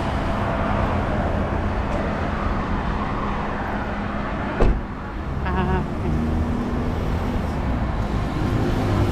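Steady rumble and road noise of a taxi, heard from inside the car, with one sharp click about halfway through.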